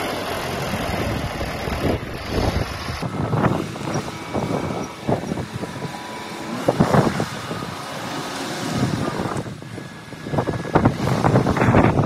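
A Daswell 3.5 m³ self-loading concrete mixer truck driving over a rough dirt track, its diesel engine running with several loud surges of noise.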